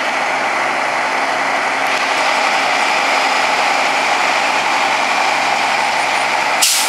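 Bucket truck's engine idling steadily while its boom holds the pole, with one short sharp click near the end.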